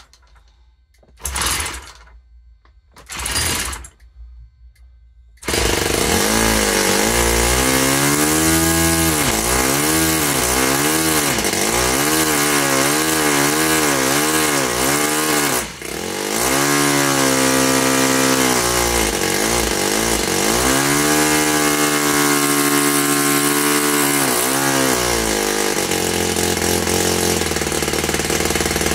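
Saito four-stroke glow model engine spun twice in short bursts by an electric starter, then firing about five seconds in and running on its own. Its speed rises and falls unevenly, dips briefly about halfway through, and settles lower near the end, as a freshly started engine with its needle valve not yet set.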